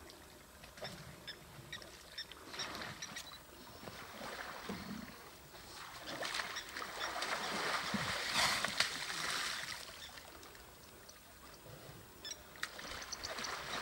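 African elephant bull splashing and sloshing water with its trunk and feet as it wades in a mud wallow, the splashing heaviest in the middle of the stretch.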